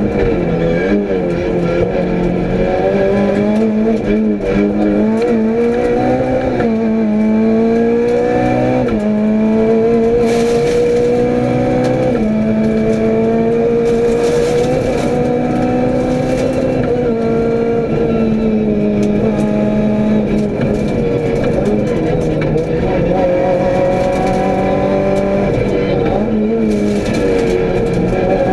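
Renault Clio rally car's engine, heard from inside the cockpit, pulling hard at full throttle. The pitch climbs and then drops sharply at each upshift, about a third of the way in, again a few seconds later, and once more near the end.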